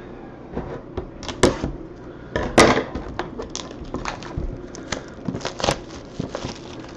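Trading card packaging being torn open and handled: a run of crinkling crackles and sharp snaps, loudest about a second and a half, two and a half and five and a half seconds in.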